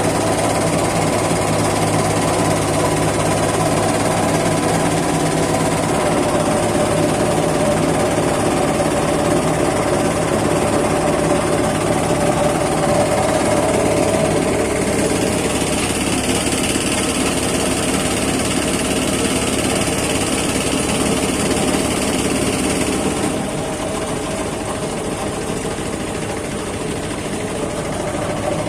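A small engine running steadily with a fast, even chatter, easing to a lower, quieter note about 23 seconds in.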